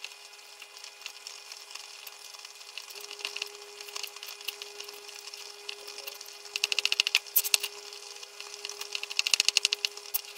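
Kitchen knife chopping hard cheese into cubes on a plastic cutting board: scattered knife taps, then two quick runs of rapid chopping strokes, the loudest about six and a half and nine seconds in, over a faint steady hum.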